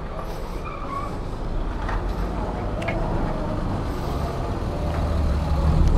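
Car engine running close by in a narrow lane: a steady low rumble that grows louder near the end.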